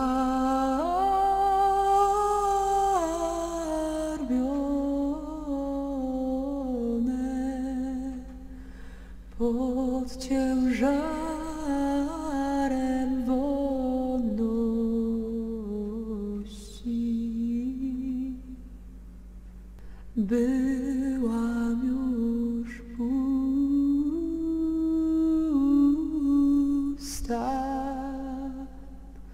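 A woman humming a slow, wordless melody unaccompanied, in long phrases with short breaks about a third and two thirds of the way through.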